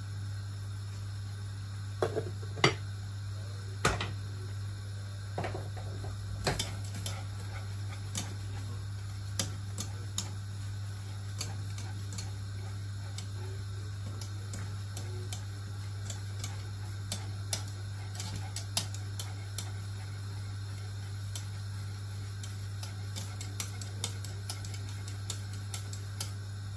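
A wire whisk clinking and tapping against the sides of a stainless steel pot while stirring thick maize flour porridge: irregular light ticks, with a few louder knocks in the first few seconds, over a steady low hum.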